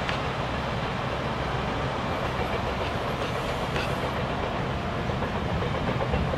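JR Kyushu 813 series electric train running away down the line: steady wheel-on-rail noise with a few faint clicks.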